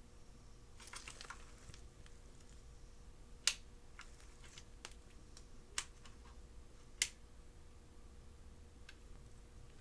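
Keys of a Corsair K70 RGB Pro Mini mechanical keyboard clicking as they are pressed one at a time. A soft cluster of clatter comes about a second in, then three loud single clicks a second or more apart, with fainter ticks between.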